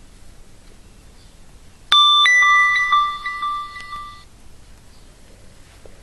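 Chime-style ringtone from a Nokia 6124 classic phone's speaker. A bell-like ding-dong starts suddenly about two seconds in, then rings out and fades away over about two seconds.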